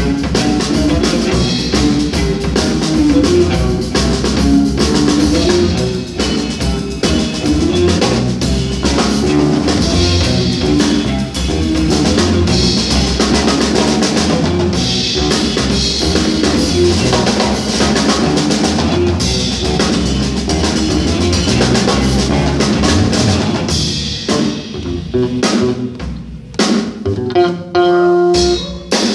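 Live jazz-funk trio of electric guitar, electric bass and drum kit playing together, with busy drumming under the guitar and bass lines. Near the end the band thins out to scattered drum hits and a held note.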